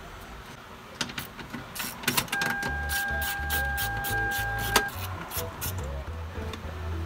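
Hand work inside a car door during window regulator removal: a run of sharp metallic clicks and rattles, with a steady high beep-like tone for about two and a half seconds in the middle and a low rumble underneath.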